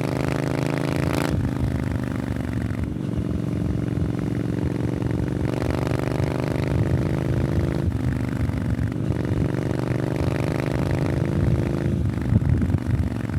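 Triumph Scrambler 900's parallel-twin engine through an aftermarket Arrow exhaust, pulling under load while riding. Its pitch climbs steadily and then drops several times as the rider shifts up through the gears.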